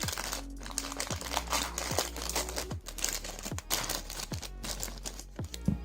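Plastic or paper packaging crinkling irregularly as it is handled and opened, over background electronic music with a steady kick-drum beat.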